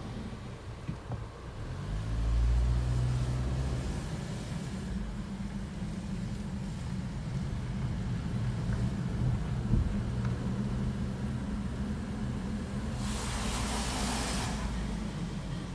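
2012 Chevy Equinox being driven: steady engine and road rumble that swells about two seconds in as it pulls harder. A brief rushing hiss comes near the end; no clear brake squeal stands out.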